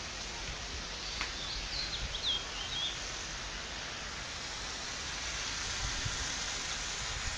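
Steady outdoor background hiss, with a bird giving a quick run of short, high chirps between about one and three seconds in.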